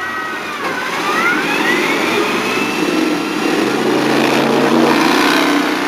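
Lifted Chevy pickup's engine revving hard as its tires spin in deep mud. The pitch rises about a second in and then holds high.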